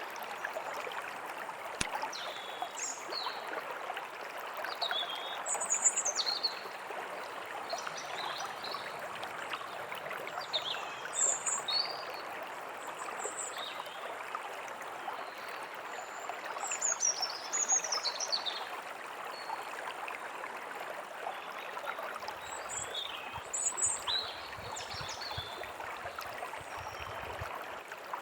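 Steady rushing of a forest stream, with small birds chirping on and off above it in short, high, quick notes and downward slurs every second or two.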